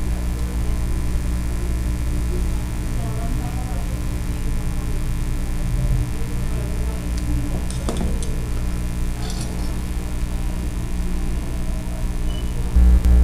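Steady low background hum with a few light clicks from pliers and small wires being handled on the bench, and a short louder thump near the end.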